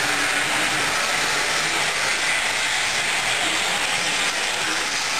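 HO-scale model train running on the layout: a steady, even rushing hiss from the wheels and motor.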